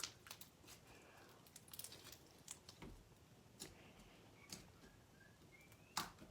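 Faint, scattered clicks and small pops of slime being squeezed and worked by hand, with one louder pop near the end.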